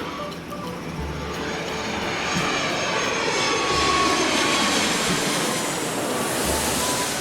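Airplane fly-by sound effect: a jet-engine whoosh that swells to its loudest about four seconds in, its pitch falling as it passes, over light background music.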